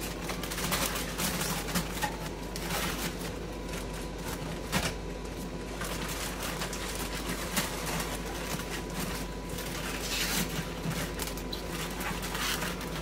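Plastic liner bag rustling and crinkling as it is handled and pressed into a stainless-steel solvent recycler tank, with scattered light clicks and knocks as its retaining ring is fitted.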